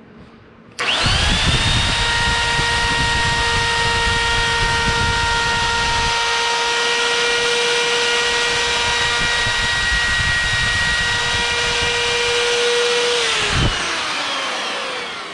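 Hammerhead 10-amp variable speed plunge router switched on, its motor spinning up quickly and running steadily with a high whine. It is switched off near the end and winds down with falling pitch.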